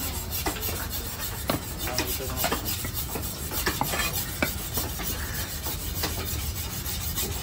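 Large fish-cutting knife slicing fish flesh and scraping and knocking against a wooden log chopping block, with irregular sharp taps and rasping scrapes over a low steady background hum.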